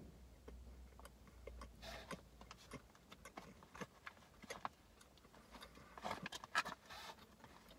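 A person chewing a soft peanut butter cookie with the mouth closed: faint, scattered mouth clicks and smacks, a little busier near the end.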